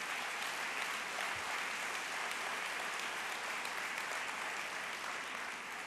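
Audience applauding steadily, the clapping beginning to die away near the end.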